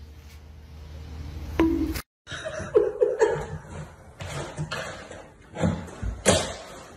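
A person laughing in short, broken bursts, with a few sudden knocks or bumps near the end. Earlier, about one and a half seconds in, there is a single sharp sound over a low hum.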